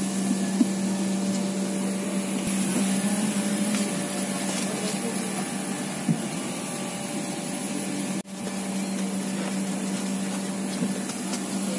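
Steady rushing hum of an airliner cabin's air-conditioning with a constant low drone underneath, heard while the plane stands with passengers up in the aisle. The sound drops out for an instant about eight seconds in.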